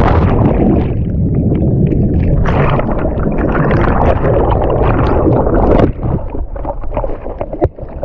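Churning, bubbling pool water heard with the microphone underwater, a loud muffled rush of bubbles. It eases off about six seconds in and turns choppier, with a sharp knock near the end.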